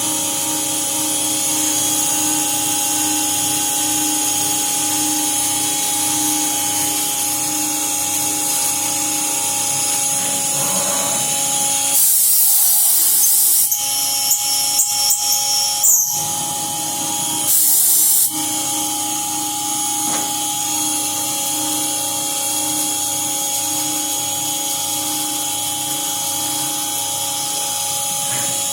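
CNC mill spindle turning at 8,000 RPM with a steady whine while an end mill cuts a hole in an aluminium soft jaw. About twelve seconds in there is a short loud hiss, then a stretch of irregular cutting noise, then a second short hiss.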